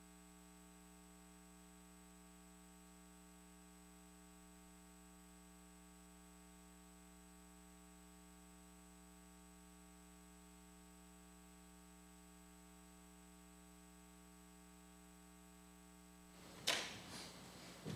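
Near silence: a faint steady electrical hum, which cuts out shortly before a brief faint noise near the end.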